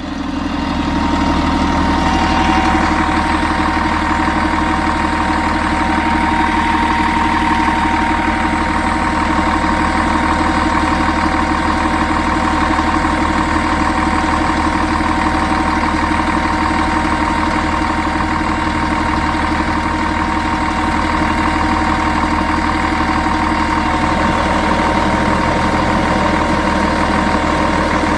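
Volvo Olympian bus's D10A-245 inline-six diesel idling steadily, with a steady high-pitched tone running over the low engine note: the odd idle sound the owner calls weird.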